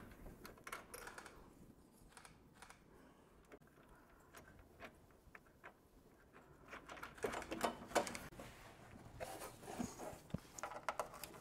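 Faint, scattered small metal clicks and taps of nut, washer and bolt being handled and threaded by hand onto a steel fairing support bracket. A quiet stretch early on gives way to busier clicking from a little past the middle.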